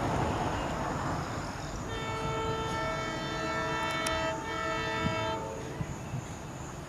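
EMD WDP4D diesel locomotive sounding its horn in one long blast of about three and a half seconds, a steady chord of several tones, over a rumbling noise.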